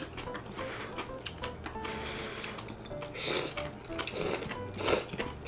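Thick udon noodles in soup being slurped and eaten, with a few short slurps in the second half, over quiet background music.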